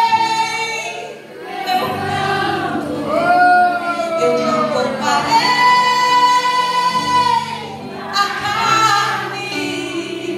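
A woman singing a worship song through an amplified microphone, in long drawn-out notes over steady held backing notes.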